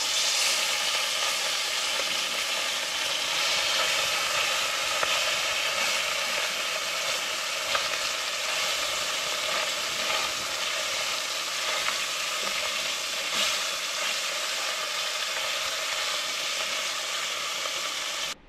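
Fish (biquara) frying in hot oil in a pan: a steady sizzle that stops abruptly near the end.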